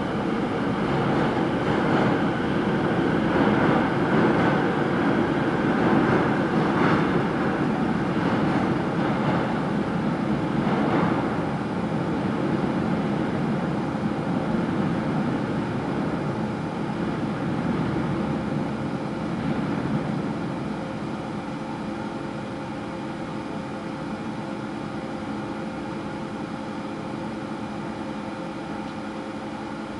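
Seoul Line 5 subway train heard from its cab: a steady hum from its onboard equipment with a few steady tones, easing down a little about twenty seconds in.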